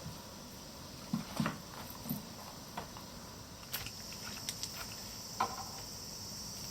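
Insects chirring steadily in the background, with a few faint scattered clicks and knocks.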